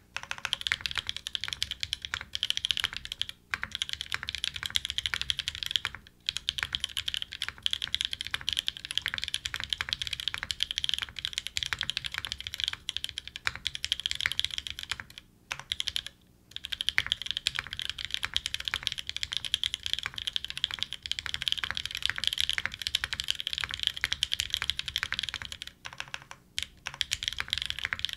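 Fast, continuous typing on a custom 60% mechanical keyboard with lubed Novelkeys Nolives linear switches, an aluminium plate and GMK ABS keycaps, broken by a few brief pauses.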